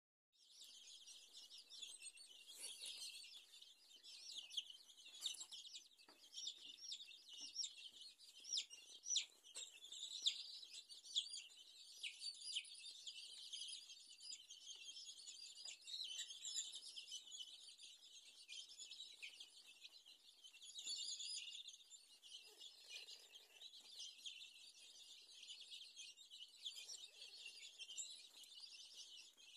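A brood of young chicks peeping continuously, many short, high chirps overlapping into a steady chatter.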